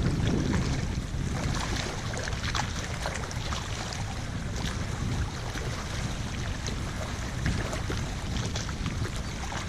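Gusty wind buffeting the microphone as a steady low rumble, with faint scattered ticks and splashes over it.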